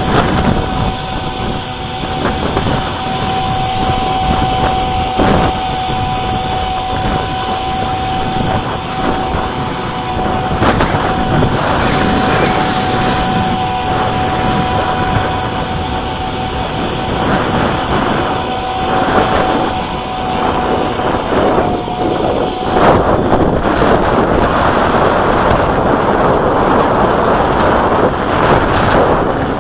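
Blade 300 CFX electric RC helicopter hovering in gusty wind, its motor and rotor giving a steady whine over heavy wind noise on the microphone. About two-thirds of the way through, the whine fades as the helicopter climbs away, and the wind noise takes over.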